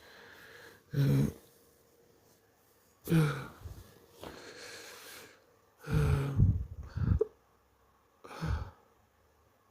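A man hiccuping in a fit, about five voiced hiccups one to two seconds apart, with breathy sighs between them.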